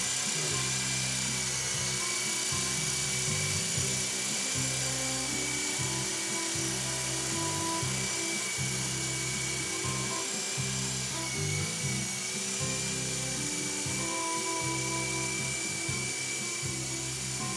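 Micro coaxial electric RC helicopter hovering: its small motors whine steadily at a high pitch as the rotors whir, with music playing underneath.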